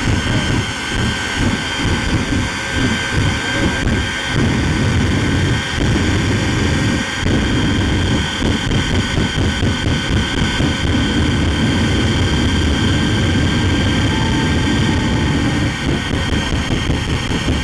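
Shockwave jet truck's three jet engines running at full blast with afterburner. A steady high turbine whine sits over a loud, rapidly fluttering rumble from the flaming exhaust.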